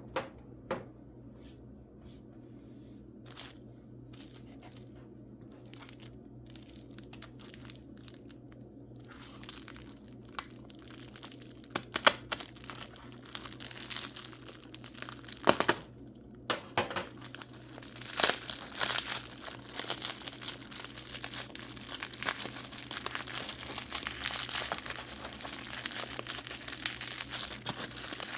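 Packing wrapping being crinkled and torn open by hand as a mineral specimen is unwrapped. A few scattered small clicks come first, then dense crinkling starts about a third of the way in and grows louder in the second half.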